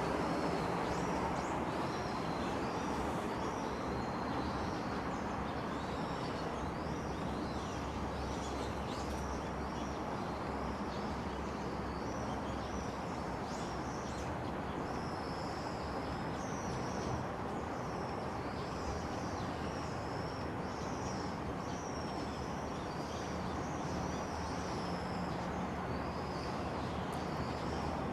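Small birds chirping and twittering in a continuous run of short calls, over a steady low background rumble.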